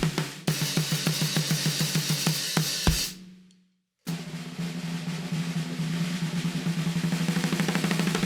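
CMC Maple x Bubinga 14x6.5" snare drum, maple-and-bubinga shell, played in fast rolls with the head ringing under them. The first roll ends about three seconds in on an accented hit with a low thump and rings out into a brief silence. A second long roll starts about four seconds in and grows slightly louder.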